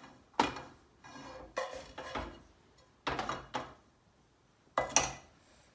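Large metal spoon knocking and scraping against a metal saucepan while scrambled eggs are scooped out onto a plate: a series of about seven sharp clanks spread over several seconds.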